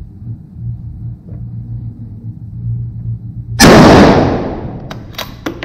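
A single rifle shot about three and a half seconds in, very loud and echoing long in an indoor range, over a low steady hum. A few sharp metallic clicks follow near the end as the bolt is worked to eject the spent case.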